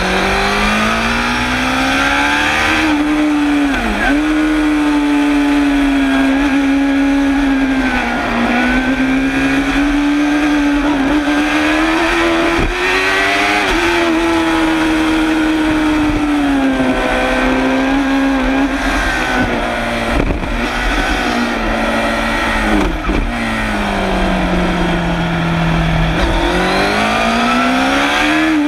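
Suzuki GSX-R750 SRAD's inline-four racing engine heard close to its exhaust silencer at race speed. The revs climb again and again, with quick drops in pitch at each gear change and longer falls as it slows for corners.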